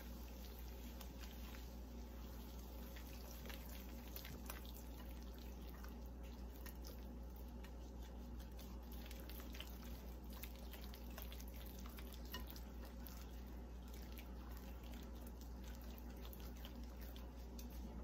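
Beer batter being stirred in a bowl: faint, wet stirring with scattered soft clicks of the utensil against the bowl, over a steady low hum.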